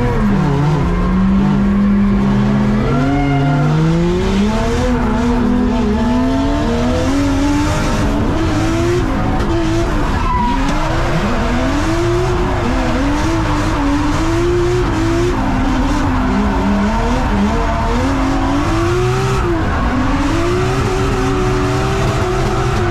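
Drift car's engine revving up and down again and again as the throttle is worked through a tandem drift, with the tyres squealing as the car slides, heard from inside the cabin.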